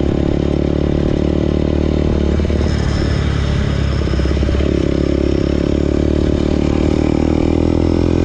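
The rider's own motorcycle engine running under way, heard from the bike. Partway through it goes rough and rattly over gravel, and near the end the engine note climbs a little as it picks up.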